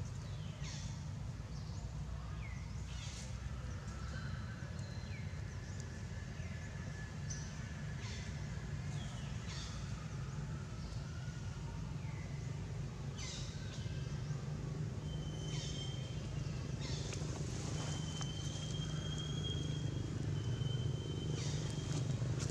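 Outdoor ambience of short, high-pitched animal chirps that sweep downward, repeating every second or two, over a steady low hum. Past the middle, a few longer, thin, high steady tones join in.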